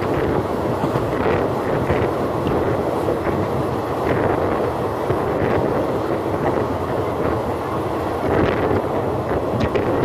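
A moving passenger train heard from an open coach door: a steady rumble of wheels on rail with irregular clacks, and wind buffeting the microphone.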